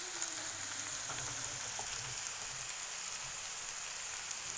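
Chopped red onions frying in mustard oil in a pan: a steady, even sizzle.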